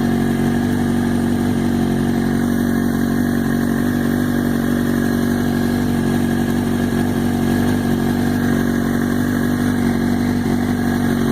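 2005 Kawasaki Ninja ZX-6R 636's inline-four engine idling steadily in neutral, shortly after being started.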